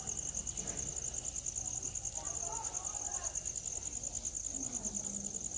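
Crickets chirping in a steady, fast pulsing trill.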